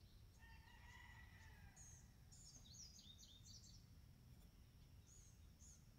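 Near silence outdoors, with faint bird chirps: a quick run of high chirps a couple of seconds in and a few more later, over a low rumble of background noise.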